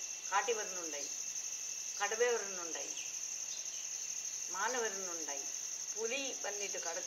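Steady high-pitched chorus of crickets or cicadas. Four short calls that fall in pitch break through it, spread about two seconds apart.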